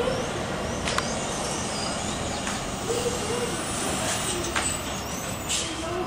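Outdoor city ambience: a steady wash of distant traffic noise, with a few faint clicks and short high chirps.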